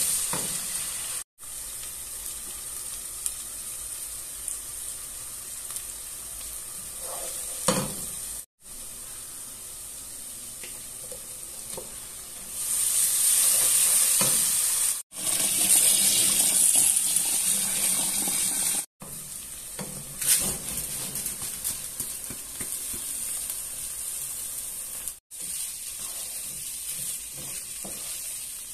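Onions, ginger and garlic, then boiled beef, sizzling in hot oil in a pot, with a wooden spoon stirring and now and then knocking against the pot. The sizzle grows louder for several seconds around the middle and is broken by a few abrupt cuts.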